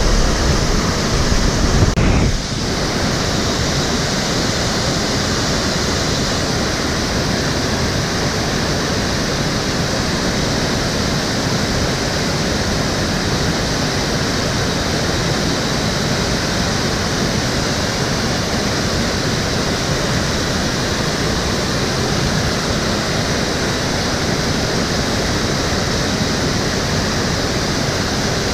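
Stream water flowing and rushing steadily over its bed. For about the first two seconds a low rumble sits under it, then stops.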